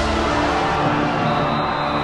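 Loud soundtrack music with held, sustained tones over a dense mix.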